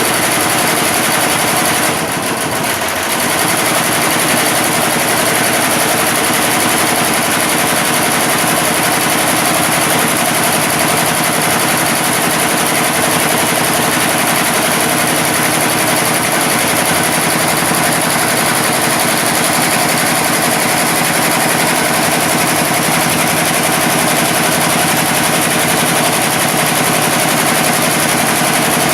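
Computerized embroidery machine running and stitching steadily, with a brief dip in level about two seconds in.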